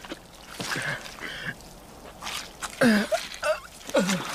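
A wounded man groaning and breathing hard in effort and pain as he tries to walk, with short wordless cries that bend up and down in pitch about three and four seconds in.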